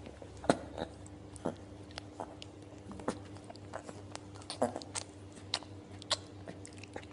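Big-cat cub sucking milk from a feeding bottle: irregular wet clicks and smacks from its mouth on the nipple, one or two a second, over a faint steady low hum.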